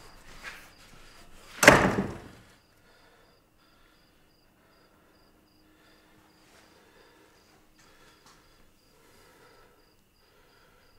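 A single loud thump or slam about two seconds in, dying away within half a second. After it, crickets chirp faintly in an even rhythm through the quiet.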